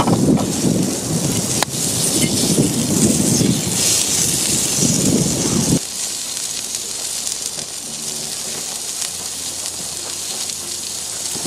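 Strong wind rumbling on the microphone over a crackling wood fire. About six seconds in this drops away, leaving the steady, quieter sizzle of sliced steak, asparagus and green peppers on a cast-iron griddle over the fire.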